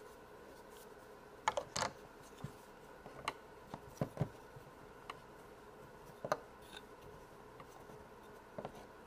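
Faint, scattered light clicks and taps from hands handling Play-Doh and its modelling tools on a tabletop, about a dozen irregular small knocks.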